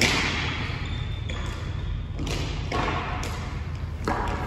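Ice skate blades scraping across the ice rink in hissing strokes. The first and loudest comes right at the start and fades over about a second, with more strokes about two and four seconds in. A few short sharp clacks fall between them, over a steady low rink hum.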